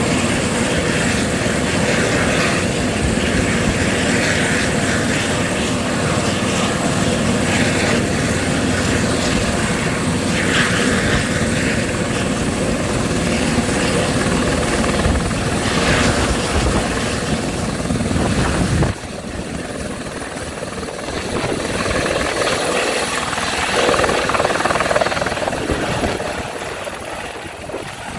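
Eurocopter EC130 helicopter's single turbine engine and rotors running at power on the pad, then lifting off and flying away. The sound drops abruptly about two-thirds of the way through, swells again, then fades near the end as the helicopter climbs away.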